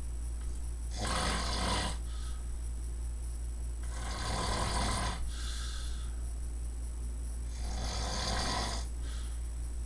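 A person snoring: three rasping snores about three seconds apart, each lasting about a second, over a steady low hum.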